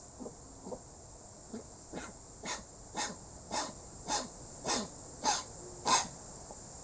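A dog coughing from kennel cough (infectious bronchitis): a few faint hacks, then a run of about eight hacks at roughly two a second, each louder than the last.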